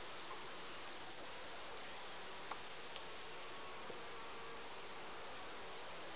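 Honeybees buzzing steadily over an open hive, with a couple of faint clicks from the hive tool against the wooden frames partway through.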